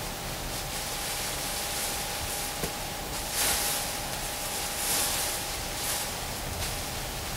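Biodegradable tree removal bag and twine rustling as they are handled and tied around a tree, with a few short swishes and a small click over a steady hiss.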